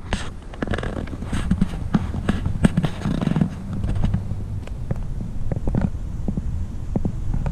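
Footsteps pushing through tall grass and weeds, heard through a body-worn camera: irregular thuds and rustling over a steady low rumble of camera handling.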